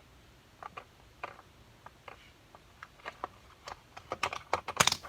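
Scattered clicks and crackles of plastic packaging being worked open by hand. They start sparse and grow busier and louder near the end.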